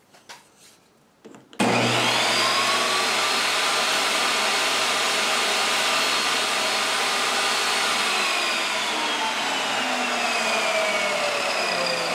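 Chicago Electric benchtop table saw switched on about a second and a half in, its motor whining up to speed, then running loud and steady while a thin test strip is ripped from a block of wood. Its whine slowly drops in pitch over the last few seconds.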